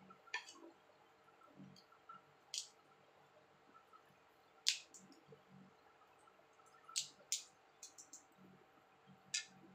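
Eating chilli crab by hand: about eight sharp, scattered cracks and clicks of crab shell and mouth sounds, with soft sticky squishing of the sauce-covered meat.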